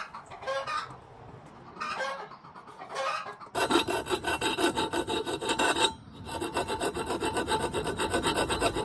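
Metal being ground down on the edge of a motorized bicycle's exhaust pipe bracket, to clear where it was hitting. It comes as a rapidly pulsing scraping in two runs, starting about three and a half seconds in, with a short break around six seconds. Hens cluck before it starts.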